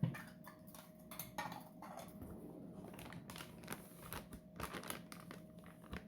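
Kitchen utensils being handled while almond flour is scooped into a bowl: a run of light clicks, taps and rustles, with a dull thump right at the start.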